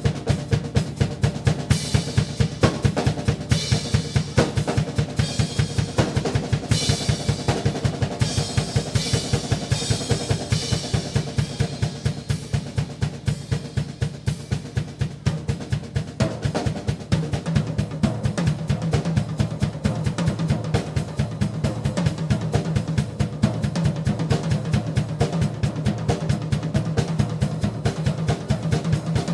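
Drum kit played live at a fast, steady pace, bass drum and snare driving a continuous run of strokes, with cymbal crashes through the first ten seconds or so.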